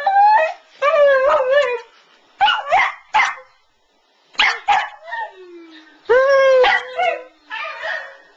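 West Highland white terrier howling in a series of short, wavering yowls and yips. After a brief pause about halfway through comes a longer call that rises and then holds.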